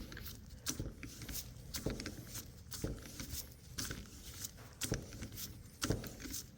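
Faint, irregular metallic clicks and knocks, a few a second, from hand tools being worked on the threaded end of a CV axle.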